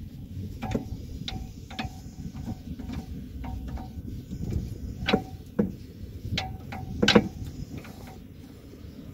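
Sharp metallic clicks from a socket wrench turning a nut on a Pride's rear axle, each with a short ring. The clicks come irregularly, about a dozen of them, the loudest around the middle and two-thirds of the way through, over a steady low rumble.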